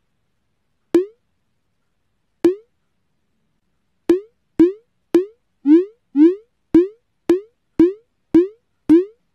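Twelve short electronic bloop sounds, each a quick upward-sweeping pop, with dead silence between them: two spaced out near the start, then a steady run of about two a second.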